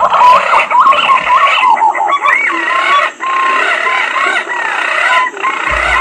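Green pigeons (punai) whistling: many short, overlapping calls that glide up and down, some with a rising hook, one after another throughout. A low thump sounds near the end.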